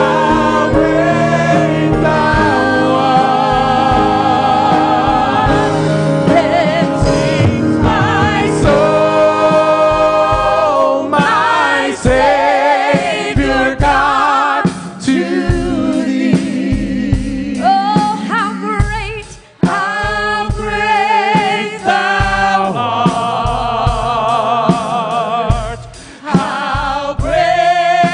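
Church worship team of men and women singing a gospel worship song together, with music behind them.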